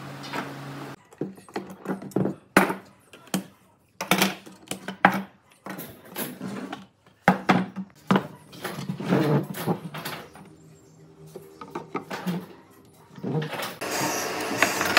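Irregular knocks and clatter of bent-wood chair pieces and a bar clamp being handled and set down on a wooden workbench. A steady low hum cuts off about a second in, and busier, noisier workshop sound comes up near the end.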